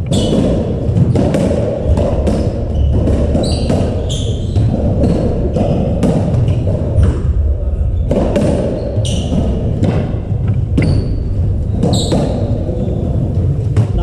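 Racketball rally on a squash court: the ball thudding off rackets and the walls again and again, echoing in the court, with shoes squeaking on the wooden floor between hits.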